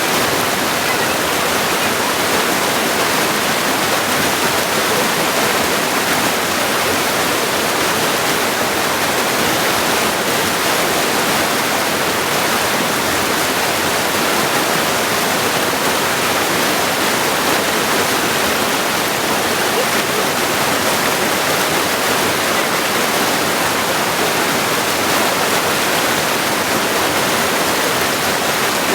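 Cold mountain stream rushing steadily over stones and rocks, a constant even wash of water with no change in level.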